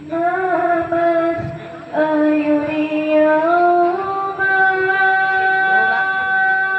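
A woman singing long held notes, moving to a new pitch every second or two.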